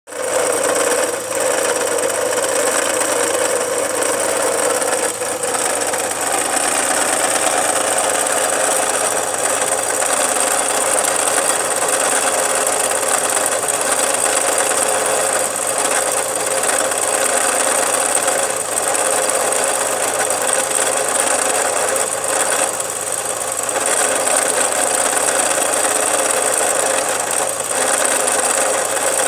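Opel Insignia engine running with a steady extraneous noise that the owner places in the area of the alternator or the water pump, cause unknown.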